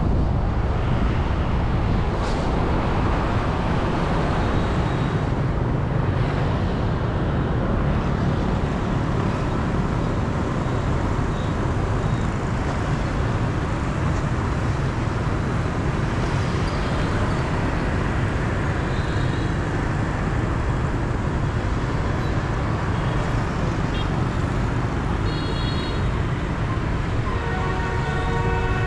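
Steady road traffic noise from motorbikes and cars with a low rumble. Near the end a vehicle horn beeps several times in quick succession.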